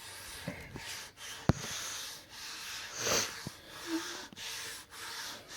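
Hand wiping water across a bare wooden cutting board: repeated rubbing strokes about a second apart, with one sharp click about a second and a half in.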